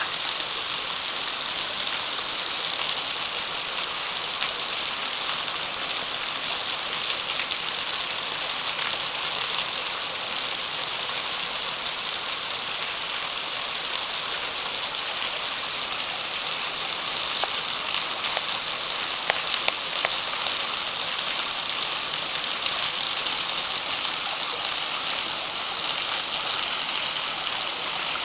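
Small waterfall running at low dry-season flow: a steady hiss of falling and splashing water. A few faint clicks come a little past the middle.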